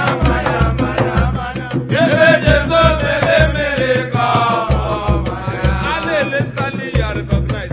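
Music: a sung vocal line over a steady, repeating drum beat.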